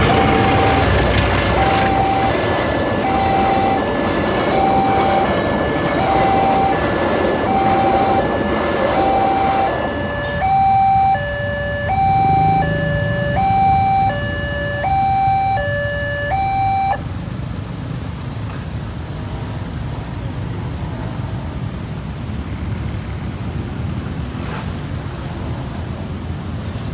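Railway level-crossing warning alarm sounding a two-tone electronic chime, the two pitches alternating about once a second, over the broad rushing rumble of a passing train. The rumble eases off about ten seconds in, and the alarm stops abruptly a few seconds later, leaving steady road noise.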